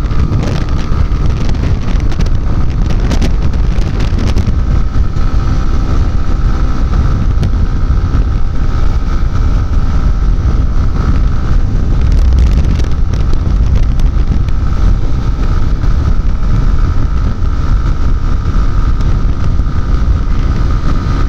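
Wind buffeting the microphone over the Yamaha XTZ Crosser 150's single-cylinder engine running steadily at highway speed, near 120 km/h.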